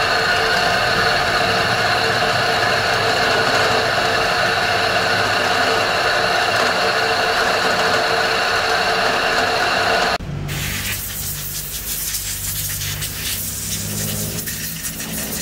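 Drill press spindle running a cutter into an aluminium piston crown held tilted in a vise, a loud steady machining whine of many tones, typical of cutting valve reliefs into the piston. About ten seconds in it stops abruptly, leaving quieter workshop noise with a low hum and light clicks.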